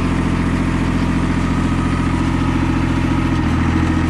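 Yanmar 186D's 18-horsepower three-cylinder diesel engine running steadily at about half throttle, its note changing slightly about three and a half seconds in.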